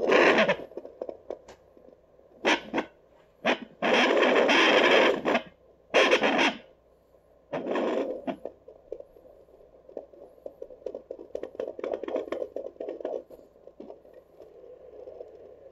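Handheld fetal doppler's speaker crackling and scraping as its probe is moved over a pregnant dog's belly in search of puppy heartbeats. It gives a string of loud rushing bursts, the longest about a second and a half, then quieter fast crackling in the second half.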